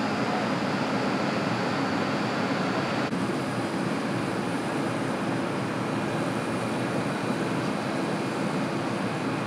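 Steady hum and rumble of a subway train and station. The background changes abruptly about three seconds in.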